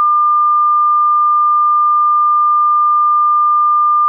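A loud, steady electronic tone at one unchanging pitch, held without a break.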